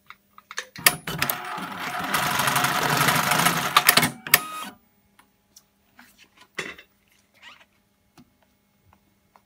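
JUKI industrial sewing machine stitching a leather boot upper at speed for about four seconds, its needle running in a fast even rhythm that grows louder, then stopping with a few clicks. A few light clicks and a knock follow as the work is handled.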